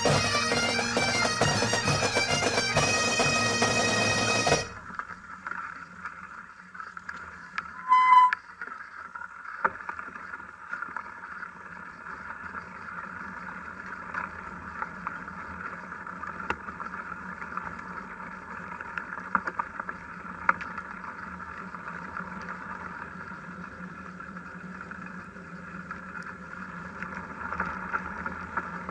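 Bagpipe music with its drone stops abruptly about four seconds in. A short, loud beep follows about eight seconds in. Then comes the steady onboard noise of a mountain bike rolling along a dirt forest track, with scattered clicks and rattles.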